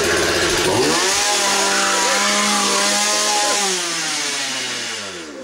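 Gas chainsaw running loudly: revved up about a second in, held at high speed, then winding down and dying away near the end.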